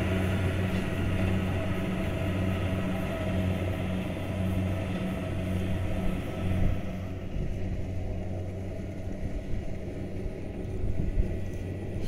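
Kubota combine harvester's diesel engine running steadily with a low hum; its higher noise fades after about seven seconds as the machine pulls away.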